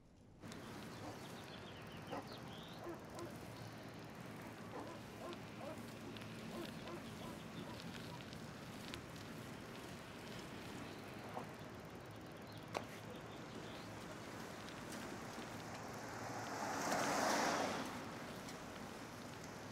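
Outdoor street ambience, a steady low background with faint scattered bird chirps and a few light clicks. About 17 seconds in a rushing whoosh swells and fades as a bicycle passes close by.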